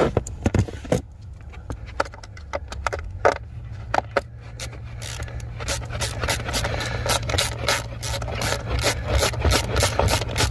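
Hand screwdriver driving a screw back into a plastic cabin air filter cover: rubbing and scraping with scattered clicks, settling about halfway in into a steady run of about four clicks a second, over a low steady hum.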